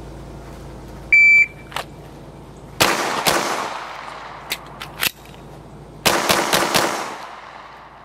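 A shot timer beeps once, then a red-dot handgun fires two quick shots. Two short clicks follow during the one-handed magazine reload, then four shots in fast cadence, each ringing out across the range.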